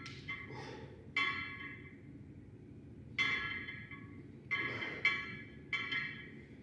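Background music of ringing, mallet-like struck notes that fade after each strike, over a steady low bed of sound.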